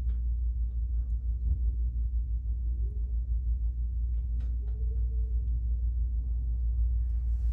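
A steady low rumble with a pulsing level, and a few faint clicks about halfway through.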